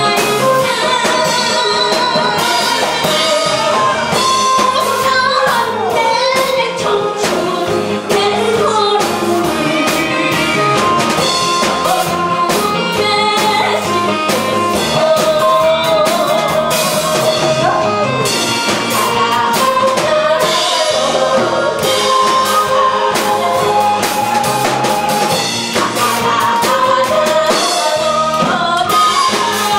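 A woman singing a Korean trot song into a handheld microphone, amplified, over music with a steady drum beat.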